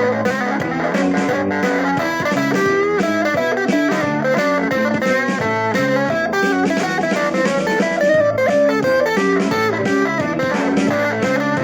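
Guitar music: a continuous run of quick plucked notes.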